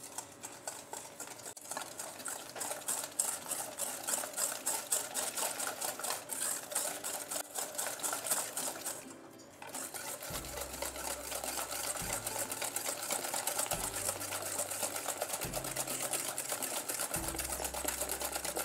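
Wire whisk beating egg yolks and sugar in a stainless steel bowl: a fast, steady clatter of strokes against the metal, with a brief pause a little after halfway. The yolks and sugar are being whisked pale, the first stage of a pastry cream.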